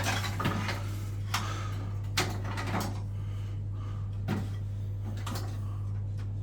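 A steady low hum with a handful of irregular knocks and clicks spread through it.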